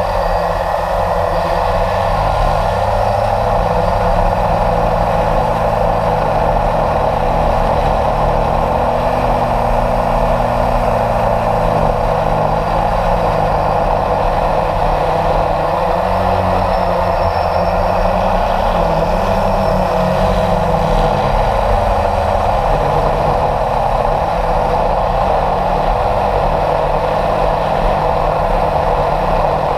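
Motor and propeller of a radio-controlled model aircraft heard from a camera on board, running steadily with small shifts in pitch as it flies.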